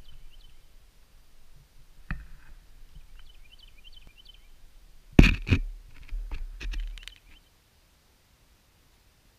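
Camera handling noise: loud knocks and rubbing about five seconds in as the camera is lowered into a shallow puddle, then the sound drops to near silence once it is underwater. Faint high chirps come and go before the knocks.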